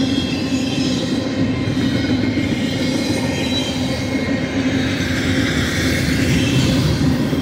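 BNSF double-stack intermodal freight train rolling past, its steel wheels running on the rails in a continuous rumble with a steady low hum through it.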